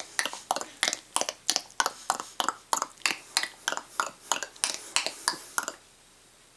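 A person making an unusual self-taught sound effect: a fast series of sharp clicks, about four a second and often in pairs. It stops about a second before the end.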